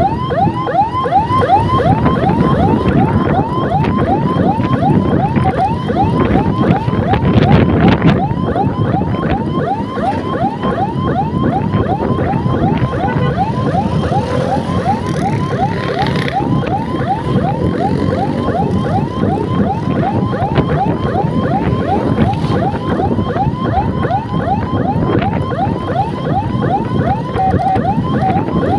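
Electronic escort siren on a motor scooter sounding a fast yelp: a sweeping tone repeating several times a second, over the scooter's engine and road noise.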